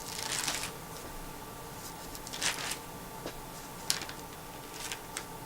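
Paper pages rustling in a few short, soft bursts, as pages of a Bible are turned to find a verse.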